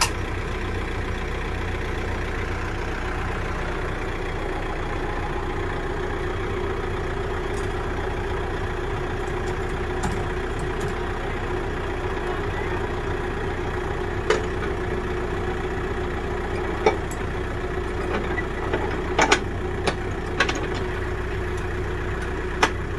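Kioti tractor's diesel engine idling steadily. In the second half come a handful of sharp metal clanks as a tiller is hitched to its three-point linkage.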